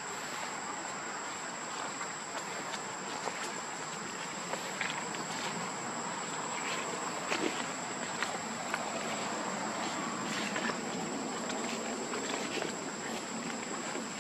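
Outdoor insect drone holding one steady high pitch over an even background hiss, with scattered faint ticks and rustles.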